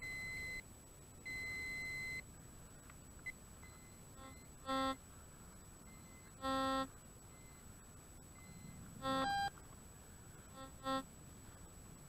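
Metal-detecting beeps while a target is dug and pinpointed: two steady high-pitched beeps in the first two seconds, then four short, lower, buzzier tones a couple of seconds apart.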